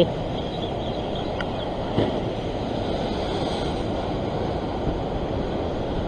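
Ocean surf surging and washing over a rock ledge, a steady rushing noise mixed with wind on the microphone, with a light knock about two seconds in.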